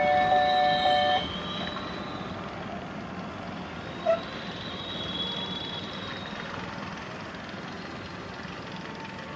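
Amusement-park level crossing alarm sounding a steady two-tone electronic warning with a faint beat, which cuts off abruptly about a second in. Outdoor background hum follows, with one short blip about four seconds in.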